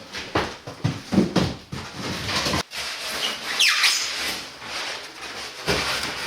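Packaging being handled as a heavy machine is pulled from its box: cardboard and styrofoam rubbing, scraping and knocking, with one high squeak of styrofoam about three and a half seconds in.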